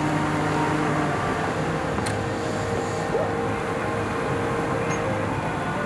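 Construction crane engine running steadily, a low droning hum with steady overtones, as the crane lowers a heavy coaster piece into place; a faint tick comes about two seconds in.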